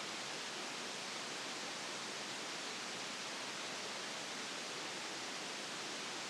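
Steady, even hiss of a quiet room recorded at high gain, with no knocks, taps or other events.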